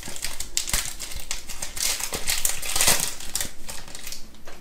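Wrapper of a Panini Mosaic NFL trading-card pack being torn open and crinkled by hand. The crackling dies down near the end.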